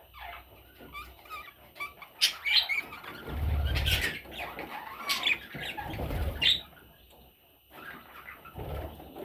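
Budgerigar chicks chirping in short calls, mixed with sharp knocks and low thuds of movement, the thuds loudest about halfway through. The chirping pauses for about a second near the end, then starts again.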